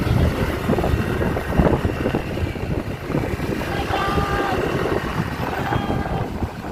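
Motorcycle engine running under way, with wind buffeting the microphone and street traffic around it. A short steady tone sounds about four seconds in.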